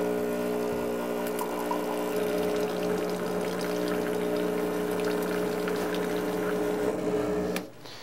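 Rancilio Silvia espresso machine's vibratory pump humming steadily as it pushes hot water out through the steam wand, with the water splashing into a ceramic cup; the pump cuts off suddenly near the end as the hot-water flow is shut off.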